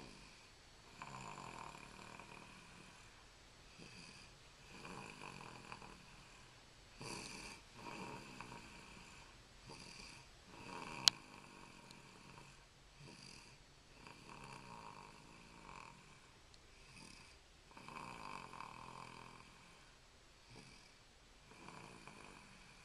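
A baby snoring softly, one rasping snore with each breath every two to four seconds. About eleven seconds in there is a single sharp click.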